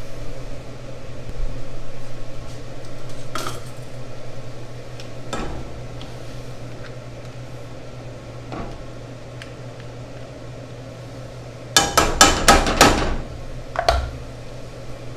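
Kitchen range hood fan running with a steady low hum, while metal tongs clink against a skillet holding simmering shrimp shells. A few scattered clicks come first, then a quick run of about five sharp metal knocks near the end, the loudest sounds here.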